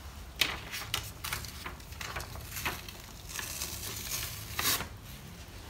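Ink-wet paper stencil being peeled off a freshly screen-printed cotton tote bag: a series of short paper rustles and crackles with small handling clicks, densest near the end.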